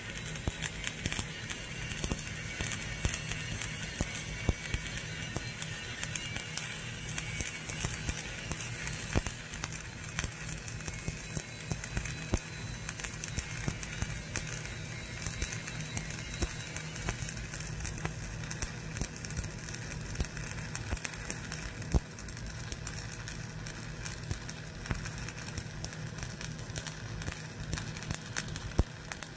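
E7016 low-hydrogen stick electrode burning in a steady welding arc on the second pass of a vertical fillet weld: continuous crackling with frequent sharper pops, over a steady low hum.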